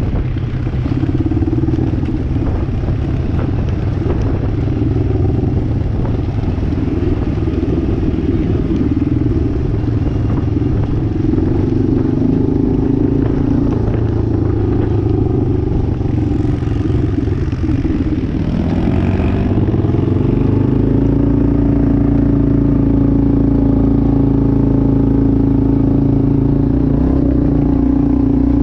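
ATV engine running while riding a rough dirt trail, with some rattling over the ground. About two-thirds of the way through, the engine revs up and then holds a higher, steadier note.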